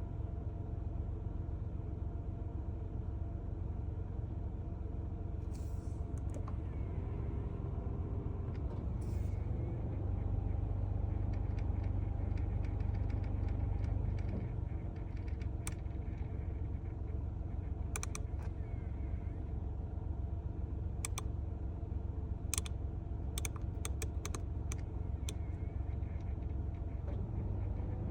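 Honda N-ONE's air-mix (blend door) motor making abnormal sharp, irregular clicking noises over the steady hum of the car's engine and ventilation; the clicks come mostly in the second half. The noise is the sign of a faulty air-mix actuator.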